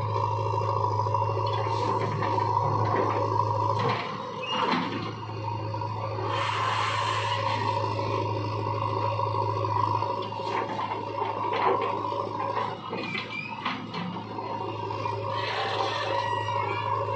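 Diesel engine of a JCB 3DX backhoe loader running steadily with a constant hum and whine, together with a tractor's diesel running. A few knocks and scrapes come through as the bucket works soil into the trolley.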